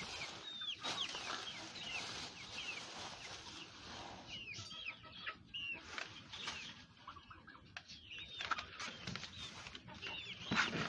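Chickens calling over and over in short high chirps and clucks, over the rustle of a plastic feed bag being opened and emptied into a cardboard box.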